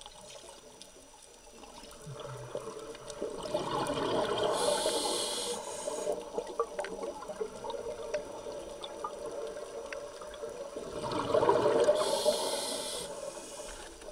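Scuba diver breathing through a regulator underwater: two breaths about eight seconds apart, each a burst of bubbling exhaust followed by a sharp hiss, with faint scattered clicks in between.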